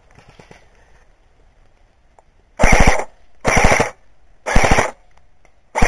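An airsoft gun firing four short bursts of rapid full-auto shots, each about a third of a second long and roughly a second apart, starting about two and a half seconds in.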